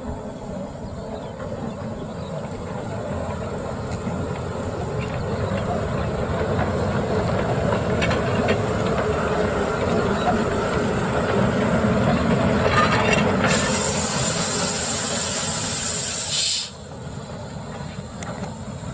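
Narrow-gauge steam locomotive running past close by, its rumble growing louder. About thirteen seconds in, a loud burst of steam hiss starts and stops suddenly some three seconds later.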